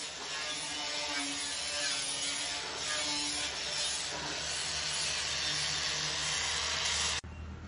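Angle grinder running steadily against a metal truck exhaust pipe, a continuous abrasive grinding hiss that stops abruptly near the end.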